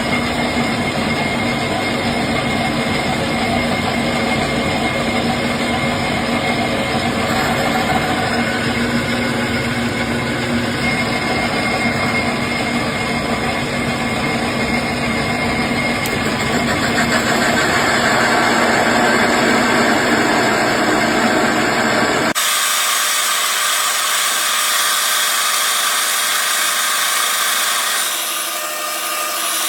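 Metal lathe running and turning down brass bar stock, a steady machine noise with a steady hum and whine. About 22 seconds in it changes suddenly to a thinner, hissier cutting sound.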